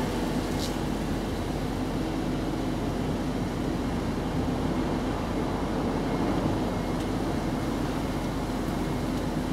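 Steady low background rumble with a constant low hum, even throughout, with a faint brief tick about half a second in.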